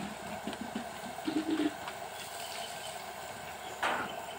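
A dove cooing briefly over steady outdoor background noise, with a single sharp knock near the end.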